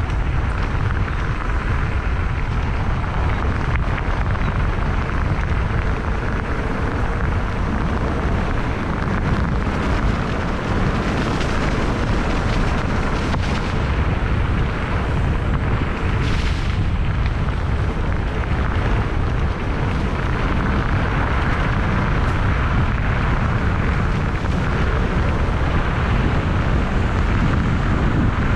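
Wind noise on a GoPro's microphone while a mountain bike is ridden: a steady, dense rumble, heaviest in the low end.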